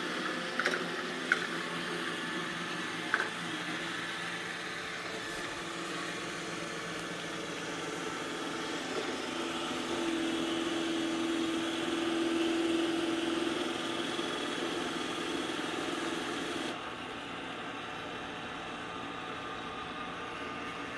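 iRobot Roomba i6+ robot vacuum running, a steady motor and brush noise with a low hum, heading back to its dock on command from the app. A few sharp clicks come in the first few seconds, and the noise gets quieter at about 17 seconds in.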